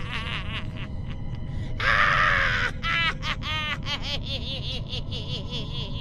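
Laughing and screaming, with a loud shriek about two seconds in, followed by a run of rhythmic laughing, over a steady background drone.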